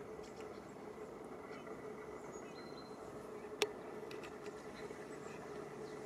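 Faint, steady outdoor background hiss with a low, even hum, broken once by a single sharp click about three and a half seconds in.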